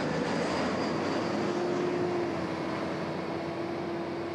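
An Airbus A380, a four-engine jet airliner, flying overhead: a steady rush of jet engine noise with a low hum that sinks slightly in pitch, easing off a little in the second half as it passes.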